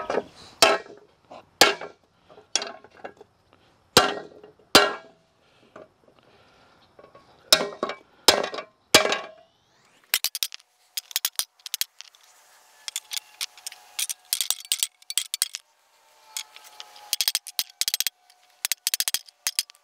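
A hammer striking a bent metal tractor grille guard laid over a wooden block to straighten it. About a dozen separate heavy blows come in the first nine seconds. After that come quick runs of lighter, sharper taps with a faint metallic ring.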